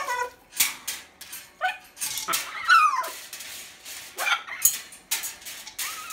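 Rubygold macaw calling: a series of short, loud squawks and calls, some sliding up or down in pitch, with brief gaps between them.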